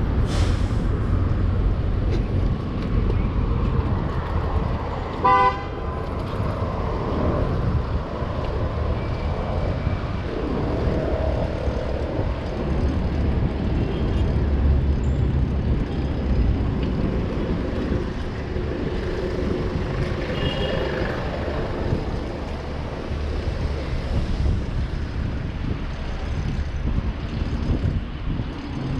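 Street traffic rumbling steadily, with a short car horn toot about five seconds in and a fainter horn later on.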